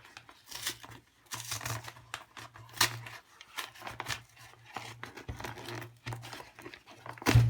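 A postal package being torn open by hand: paper packaging ripping and crinkling in irregular tears and rustles, with a sharper rip near the end. A low steady hum runs underneath.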